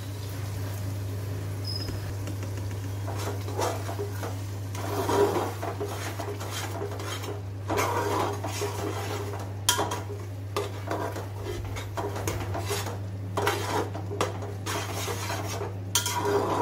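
A steel ladle stirring wet masala in a metal pot, scraping and clinking against the sides and bottom, with a few sharper metal knocks. A steady low hum runs underneath.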